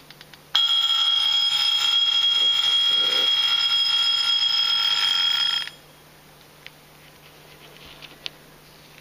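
Vintage Angelus Swiss mechanical wind-up alarm clock's alarm going off, ringing steadily at one unchanging pitch. It starts suddenly about half a second in and cuts off after about five seconds.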